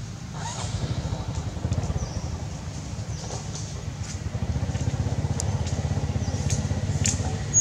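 A steady low motor rumble with a fast, even pulse, with a few faint sharp clicks in the second half.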